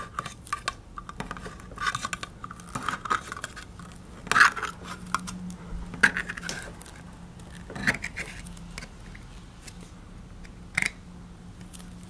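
Freshly sharpened lever-type can opener on a multi-tool punching and cutting around the rim of a steel soup can, making short metallic scraping clicks. The clicks come in a quick run for the first few seconds, then as single sharp snaps every couple of seconds.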